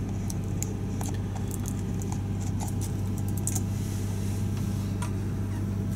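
Toyota Avalon engine idling steadily, a low even hum heard inside the cabin. Over it come scattered light clicks and taps as a plastic dash cam and its power cord are handled.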